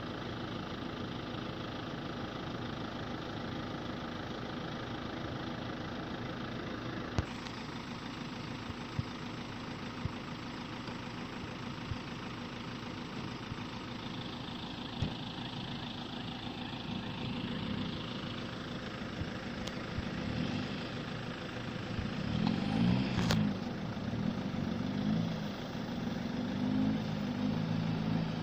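Pickup truck engine running steadily, then, from about halfway, a pickup's engine revving up and down as it drives through slippery mud, loudest near the end.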